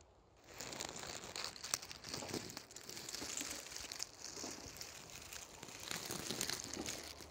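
Close rustling and crackling noise, with many small clicks, starting about half a second in and going on unevenly.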